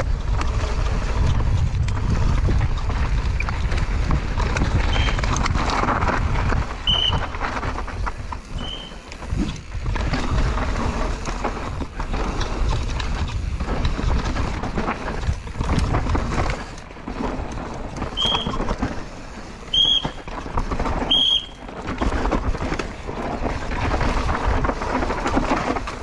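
Mountain bike descending a dirt trail at race speed, heard from a rider-mounted camera: wind buffeting the microphone over the rattle and rumble of tyres and bike on rough ground. A few short high squeals cut through, three of them close together in the second half.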